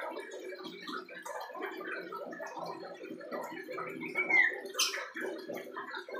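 Young common iora (cipoh) in subsong: a continuous, gurgling jumble of soft chattering notes as the immature bird practises its song. A clearer slurred whistle comes about four seconds in, followed at once by a sharp high note, the loudest sound.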